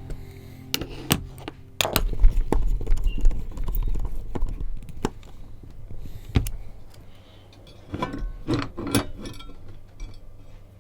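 Irregular clicks, taps and knocks of screws and the hard parts of an SLA printer's resin tank being handled. The clicks are thickest a couple of seconds in and again near the end, with a low rumble between.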